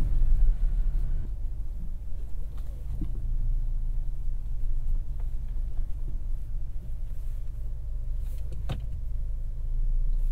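2024 GMC Canyon AT4X AEV's high-output 2.7-litre turbocharged inline-four running at low revs, a steady low hum heard from inside the cab, settling after about a second. A single sharp click near the end.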